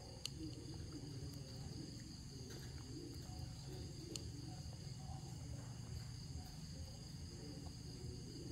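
Steady high-pitched insect chorus over a low rumble, with a couple of faint clicks.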